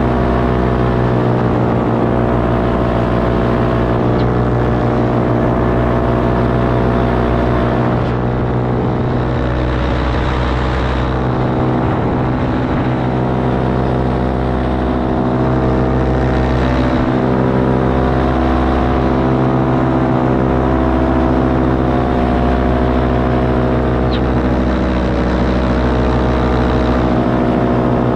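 Parajet Maverick paramotor's Vittorazi Atom 80 single-cylinder two-stroke engine and propeller running steadily in flight, its pitch shifting slightly now and then.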